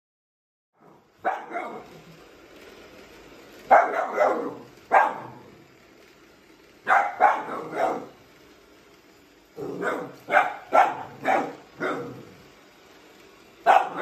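Siberian Husky puppy barking at a robot vacuum, starting about a second in, in short groups of one to several barks, about fifteen in all.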